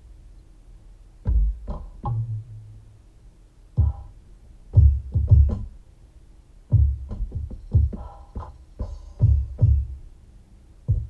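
Electronic drum-machine beat: deep drum hits played sparsely in small clusters, with short quiet gaps between them.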